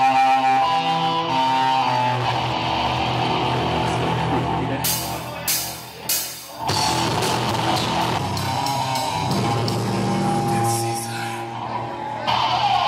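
Metal band playing live: electric guitars and bass over a drum kit, with a short break about five to six seconds in marked by a few sharp hits before the playing resumes.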